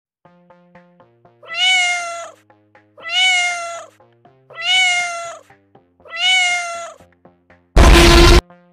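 A cat meowing four times, each meow identical and evenly spaced about a second and a half apart, over soft sustained background music notes. Near the end a short, loud burst of noise cuts in.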